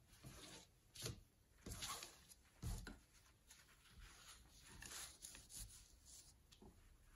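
Faint scratchy strokes and rubs of a brush working oil paint, a few short ones in the first three seconds and more softly later, with a soft knock about two and a half seconds in.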